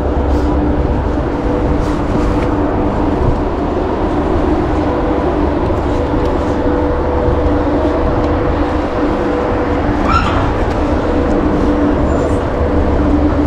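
Ship's engines droning steadily, a low rumble with a steady two-note hum over it. A brief high chirp about ten seconds in.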